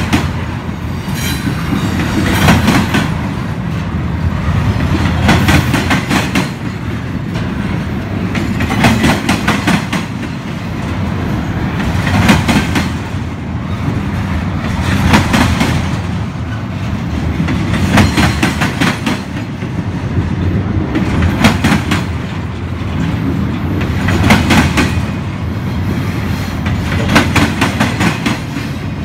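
Double-stack intermodal container train rolling past: a steady low rumble of wheels on rail, with groups of wheel clacks recurring about every three seconds as the cars go by.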